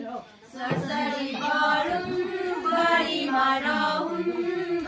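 A group of women and girls singing a Bhaileni (Tihar festival) song together, with a brief breath near the start before the voices come back in.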